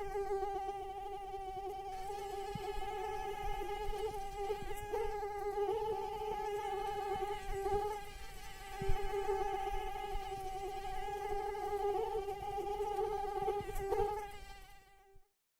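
Mosquito in flight: the steady whine of its wingbeat, wavering slightly in pitch and loudness, fading out near the end.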